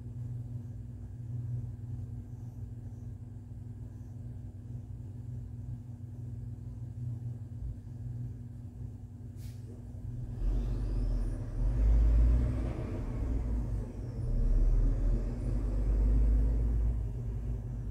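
Steady low hum, joined about ten seconds in by a louder low rumble that swells twice and eases off near the end, with a single sharp click just before it starts.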